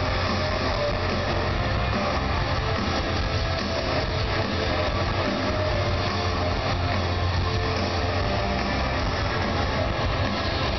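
A live band with electric guitar plays loudly through an outdoor festival stage's PA, recorded from within the crowd. The sound is dense and steady, with a heavy low end.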